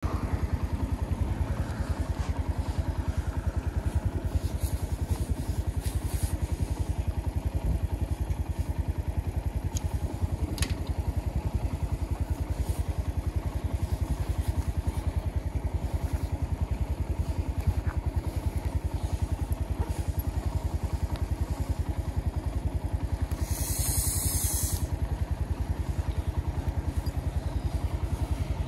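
Suzuki GS150 motorcycle's single-cylinder four-stroke engine running steadily with a quick, even firing beat. A brief hiss comes in for about a second and a half near the end.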